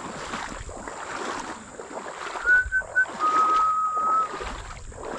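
Legs wading through shallow water among mangroves, sloshing with each step in a steady rhythm. About halfway through, a clear whistled note sounds briefly.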